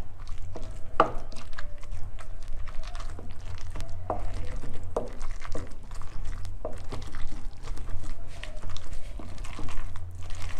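Pestle pounding cooked anishi (fermented taro leaves) in a mortar: a continuous run of uneven knocks, several a second, some with a short ringing tone.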